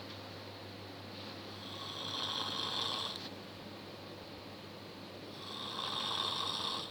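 A sleeping person snoring: two drawn-out snores, each about two seconds long and about four seconds apart.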